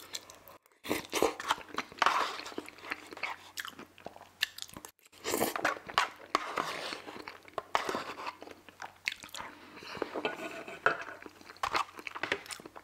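Close-miked chewing and wet mouth smacking as a mouthful of poutine (fries and cheese curds in gravy) is eaten, with short clicks of a metal fork against a plastic bowl.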